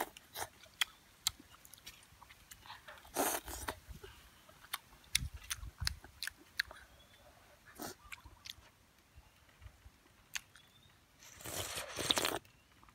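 Close-up eating: a person chewing soup with fish and vegetables, with many small wet clicks and smacks. There is a short louder burst early on, and a longer one near the end as broth is slurped straight from the rim of a clay bowl.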